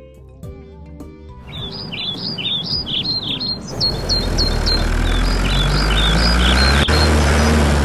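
Birds chirping in a quick repeated pattern over light music. About four seconds in, a tractor engine sound effect comes in, running with a steady low hum and growing louder.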